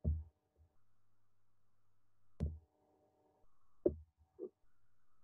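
Soft mouse clicks, four short sharp clicks and thumps spread over a few seconds, over a faint steady electrical hum.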